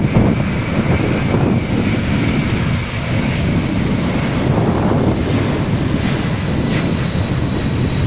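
Twin jet engines of a Boeing 767 running at high power as it rolls down a rain-soaked runway, with a thin, steady high whine over a broad rush of engine noise and spray. Heavy wind buffets the microphone throughout.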